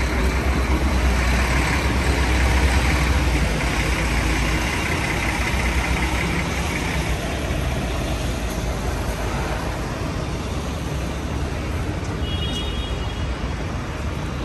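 City street traffic on a wet road: a large vehicle rumbles past in the first few seconds over a steady hiss of tyres and rain. A short faint high beep sounds near the end.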